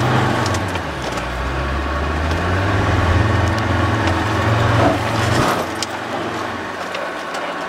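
Land Rover Defender's engine labouring as the vehicle drives over soft sand dunes, heard from inside the cab, with knocks and rattles from the body. The engine note drops away about five and a half seconds in.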